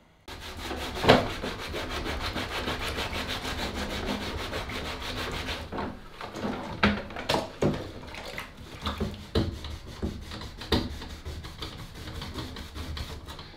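A coarse scouring sponge scrubbing hard at stained parts of a 1971 Nintendo Ultra Scope periscope toy in soapy water: rapid back-and-forth rubbing strokes, steady at first, then after a short break more uneven, with a few sharper knocks of the part.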